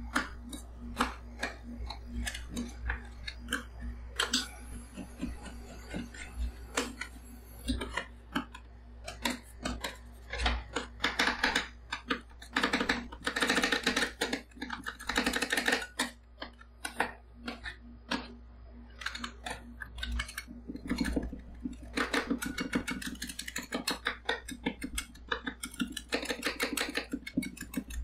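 Two metal spatulas chopping and scraping golden kiwi and cream on a stainless-steel ice-cream cold plate: fast, uneven clacking taps of the blades on the plate. About halfway through and again near the end, the taps turn into dense runs of quick chopping and scraping.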